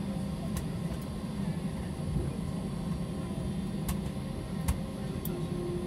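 Cabin noise of an Airbus A320 taxiing: a steady low drone from the engines and air conditioning, with a few light clicks and knocks in the cabin.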